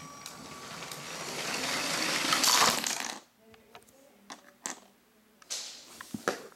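Motorized Lego train running along plastic Lego track toward the camera, its motor whir and wheel rattle growing steadily louder for about three seconds, then cutting off suddenly as it stops. A few light clicks follow.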